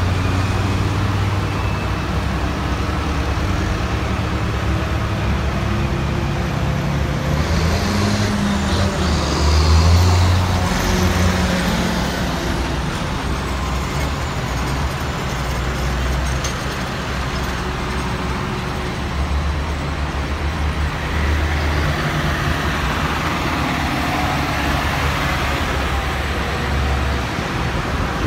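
Diesel engines of passing tractors running: a steady low drone with a broad hiss above it, swelling loudest about ten seconds in.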